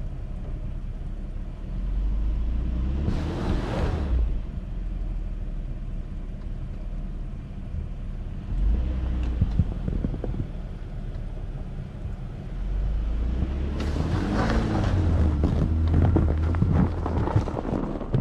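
An engine running steadily, revving up and working harder briefly about three seconds in and again for the last five seconds or so.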